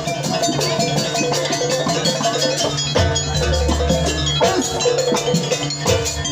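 Live dance accompaniment music in a Javanese gamelan style: drums and struck metal percussion instruments playing a busy rhythmic melody over a steady bass.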